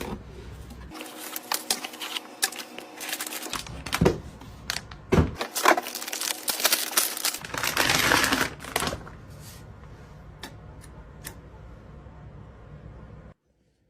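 Clicks, rattles and sharp knocks of hard computer parts being handled and fitted, with a stretch of rustling about eight seconds in. From about nine seconds only a low steady hum is left, with a few faint ticks, and it cuts off just before the end.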